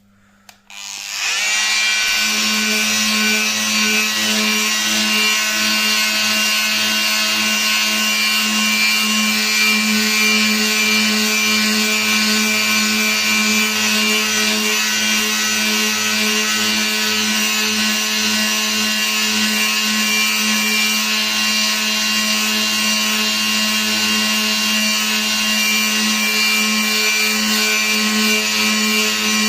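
Electric power tool starting up about a second in and then running at a steady speed with a constant hum, consistent with work beginning on the dented car door panel.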